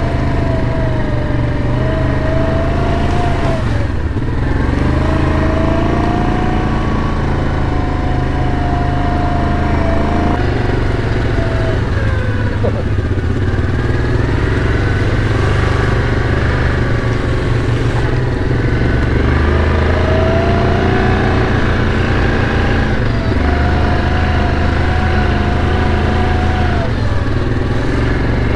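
Yamaha Kodiak ATV engine running while riding a trail, its pitch easing down and climbing again several times as the throttle is let off and opened.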